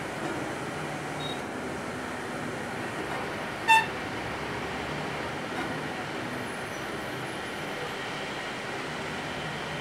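Steady road-traffic and vehicle engine noise, with one short, loud horn beep about three and a half seconds in.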